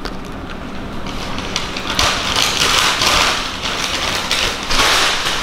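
Paper fast-food bag crinkling and rustling as it is handled, with a few light crackles at first, then a longer burst of rustling about two seconds in and a shorter one near the end.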